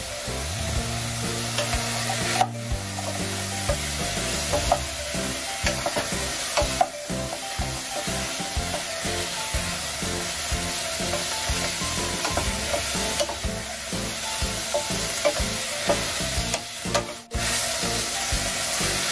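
Chunks of potato, carrot and beef sizzling in hot olive oil in a nonstick pot while a wooden spoon stirs them. The spoon makes frequent small knocks and scrapes against the pot.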